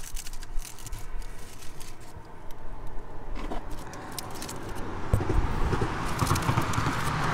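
Aluminium foil crinkling and crackling as a foil-wrapped burger parcel is lifted and unwrapped by hand, the handling busier in the second half, over a low rumble.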